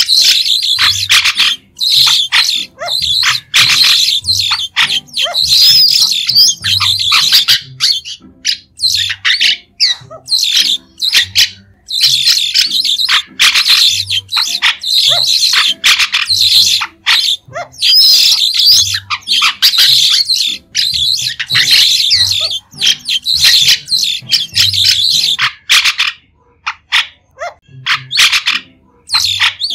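White-shouldered starlings calling: loud, dense runs of short, shrill chattering notes, broken by brief pauses, the longest near the end.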